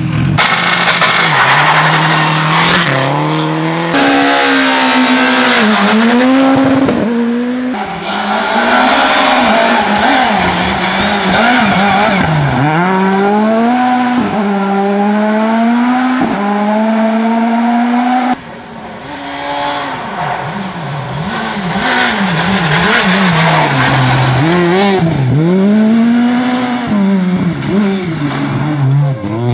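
Rally cars at full stage speed, engines revving high and dropping again and again as they shift gears and brake for corners. It goes briefly quieter about two-thirds through, then builds again.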